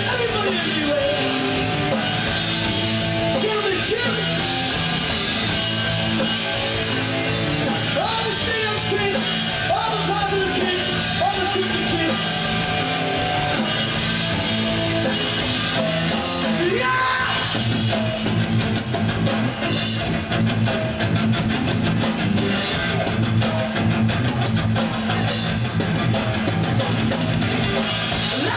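Rock band playing live: distorted electric guitar, bass and drum kit. A little past halfway the drums come in harder, with busy cymbal hits.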